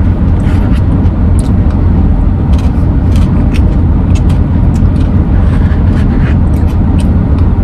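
A steady low rumble like a running car heard from inside, with scattered light clicks and taps.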